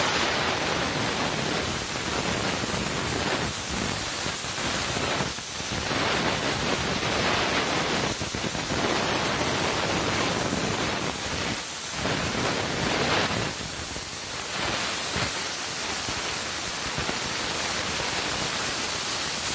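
Compressed-air blow gun hissing steadily as it blows sanding dust off a car body panel, easing off briefly several times.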